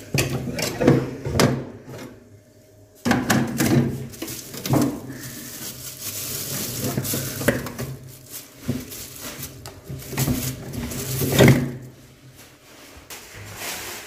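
Plastic bags of frozen food rustling and a plastic food container knocking against the wire shelves of a refrigerator's freezer compartment as food is packed in, with a series of irregular sharp knocks and clicks.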